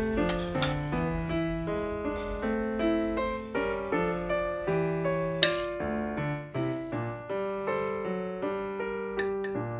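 Background piano music: a steady run of notes, each fading after it is struck. A few sharp clicks sound over it, the loudest about five and a half seconds in.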